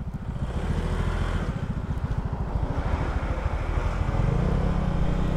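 Motorcycle engine running while riding, its low pulsing growing louder over the first few seconds and settling into a steadier drone.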